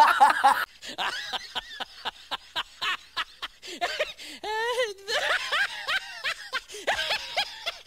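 Hearty laughter: a run of quick, even 'ha-ha' pulses about five a second, which about halfway through turns into a higher, wavering laugh.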